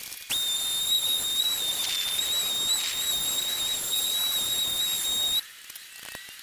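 Power sander running with a steady high whine over a hiss, starting abruptly just after the start and cutting off suddenly about five seconds in.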